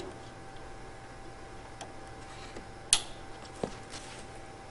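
A sharp click about three seconds in, then a softer click under a second later: an Ethernet cable's RJ45 plug latching into a router port.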